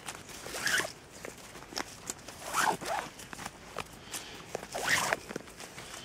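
A bootlace being pulled out through the eyelets of a boot in several short, zipper-like rasping pulls.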